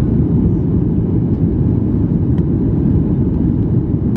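Steady, loud low rumble of a Boeing 737 airliner's jet engines and rushing air, heard from inside the cabin during the climb just after takeoff.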